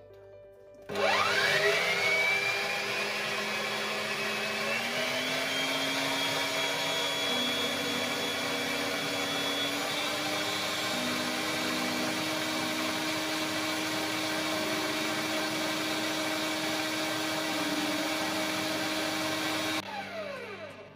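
Electric stand mixer's motor starting up with a rising whine about a second in, stepping up in pitch again a few seconds later, then running steadily as it beats butter, sugar and eggs into cake batter. It winds down with a falling whine near the end.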